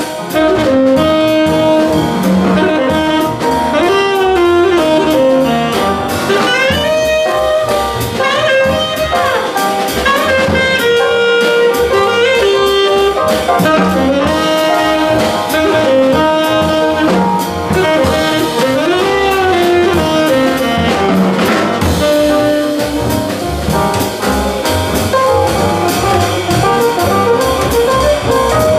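Live jazz quartet playing: a tenor saxophone carries a melody full of slides and bends over acoustic piano, upright double bass and a drum kit with cymbals.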